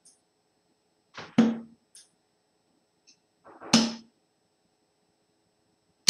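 Darts thudding into a dartboard, one sharp hit every two to three seconds.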